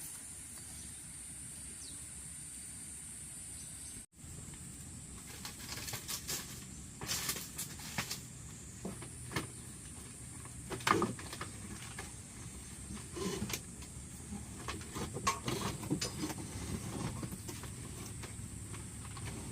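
Irregular knocks and clatters of hands-on building work, as of wood or bamboo being handled and struck, over a steady high hiss. The first few seconds hold only the hiss; the knocks start after a short break and the loudest comes near the middle.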